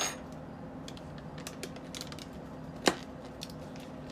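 Scattered light clicks and taps, with a sharp click at the start and a louder one about three seconds in, over a steady low hum.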